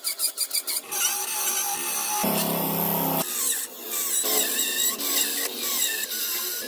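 Tools working wood, most likely a rasp or file: a run of quick, even strokes at the start, then continuous abrasive working, with a fuller, louder burst of about a second in the middle. Background music plays underneath.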